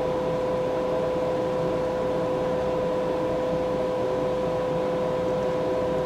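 Steady machine hum with a constant mid-pitched whine that holds unchanged throughout.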